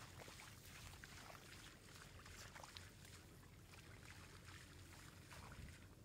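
Near silence: a faint low wind rumble on the microphone, with a few faint small splashes and ticks from fish wriggling in shallow, muddy water.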